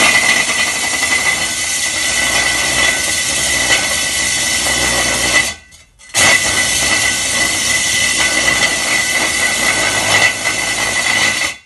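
DeWalt cordless rotary hammer drill running a red core bit into the wall, with a steady high whine, as the flue hole is started. It runs for about five and a half seconds, stops briefly about halfway, then runs again until just before the end.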